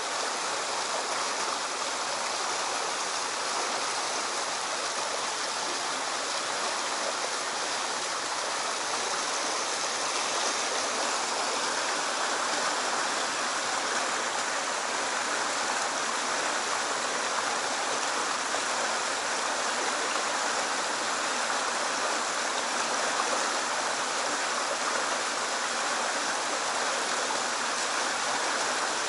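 Stream water running steadily through a narrow rock channel.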